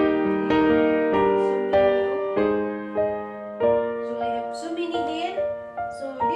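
Background music: a slow keyboard melody of held notes, changing a little under twice a second.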